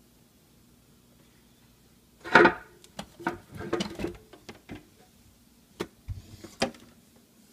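Hands handling a printer's power cable: a rustling clatter about two seconds in, then scattered small knocks and clicks.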